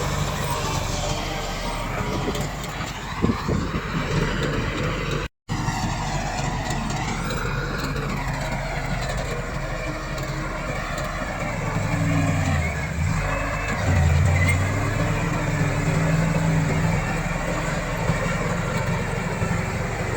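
Komatsu D68 bulldozer's diesel engine running steadily, working harder and louder from about twelve seconds in. The sound cuts out for a split second about five seconds in.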